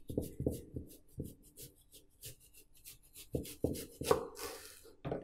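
Serrated knife sawing down through watermelon rind in a series of short strokes, knocking on the wooden chopping board, with a longer scraping stroke about four seconds in.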